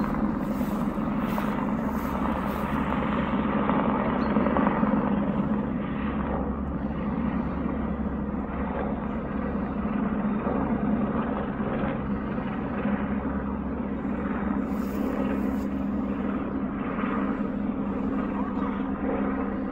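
Helicopter flying overhead with a steady drone of rotor and engine.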